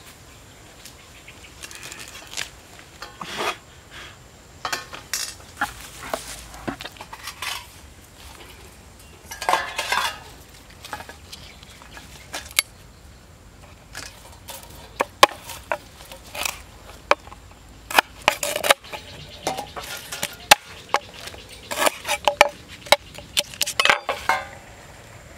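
Metal cookware and utensils clinking and clattering as they are handled: irregular sharp clicks and knocks with some rustling, more frequent in the second half.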